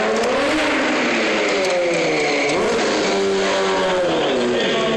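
Stunt motorcycle engine revving up and down repeatedly as the bike is ridden, echoing in a large indoor hall.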